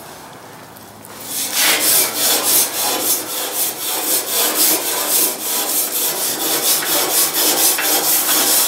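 Grill brush scrubbing the grill grates in rapid back-and-forth strokes, a loud rasping that starts about a second in.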